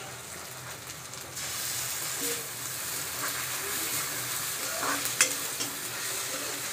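Sliced onions, chillies and freshly added ginger-garlic paste sizzling in hot oil in a metal karahi while a metal spatula stirs and scrapes them around the pan. The sizzle grows louder about a second and a half in, and the spatula clicks against the pan a couple of times around five seconds in.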